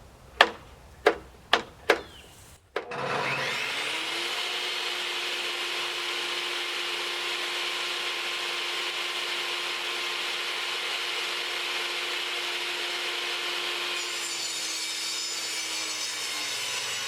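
Four sharp knocks, then a table saw starts about three seconds in and runs steadily, its blade ripping a board to width along the fence; the cut changes in sound near the end and the saw stops just after.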